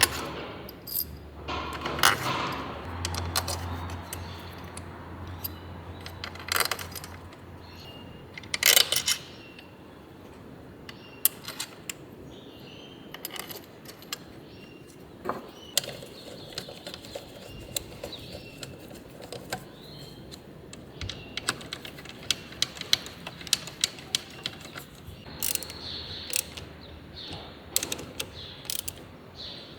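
Hand tools and metal engine parts clinking and clicking irregularly during work on a Honda Wave 110 engine, with a faint low hum for a few seconds near the start.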